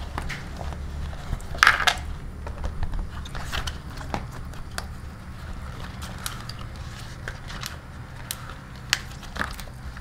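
A banana leaf rustling and crinkling as it is handled, with scattered light clicks and taps, loudest about two seconds in. A steady low hum runs underneath.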